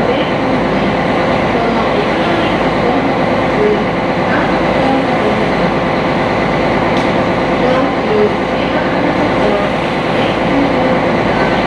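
Lake sightseeing boat under way: its engine and hull noise make a loud, steady drone.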